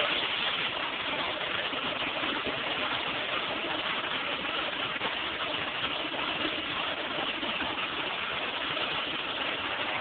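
Commercial flushometer toilet flushing: water runs steadily through the wall-mounted chrome flush valve into the bowl without shutting off, a flush that takes far too long to end.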